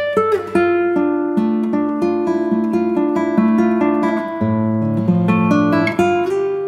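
Background music: an acoustic guitar playing plucked notes and strummed chords.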